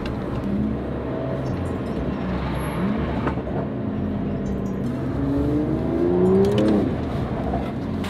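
Aston Martin engine heard from inside the cabin while driving in town traffic. The pitch rises as it accelerates from about five seconds in, then drops sharply just before seven seconds.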